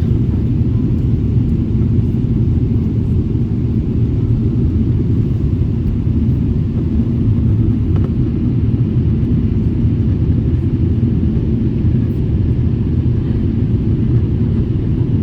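Airliner cabin noise on approach: a steady low rumble of engines and airflow, heard from inside the cabin.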